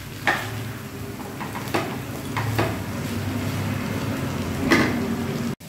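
Noodles being tossed and stirred in a nonstick frying pan with spatulas: a light sizzle under a steady low hum, with a few short scrapes and knocks of the spatula against the pan.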